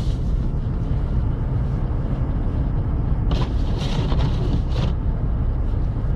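Steady drone of a car moving along a snowy road, heard from inside the cabin: engine and tyre noise, with a few short hissing sounds around the middle.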